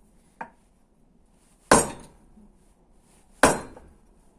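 A hydraulic valve lifter from a VAZ 21126 engine being knocked to drive out its plunger: a light tap, then two sharp blows just under two seconds apart, each with a short ringing tail.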